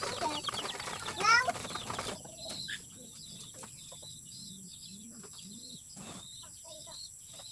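Pigeons feeding in a loft with wings flapping, and a chicken clucking once about a second in. The sound then drops to a quieter background of faint pigeon cooing and small bird chirps.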